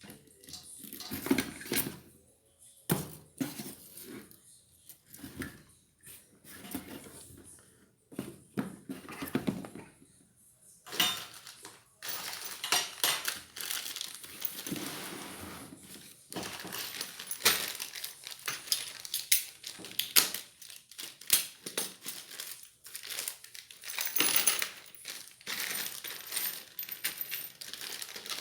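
Ceiling fan parts being handled during assembly: irregular clinks and knocks of small hard pieces, with stretches of rustling.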